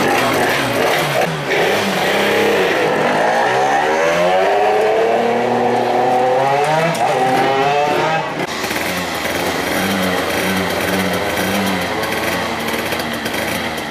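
Several small MiniGP racing minibike engines revving, their pitches rising and falling over one another; in the second half one engine gives short repeated blips of the throttle.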